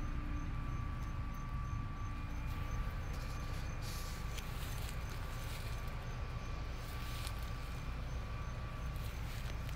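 Outdoor background noise: a steady low rumble with a faint steady high tone over it, and a couple of soft rustles about four and seven seconds in.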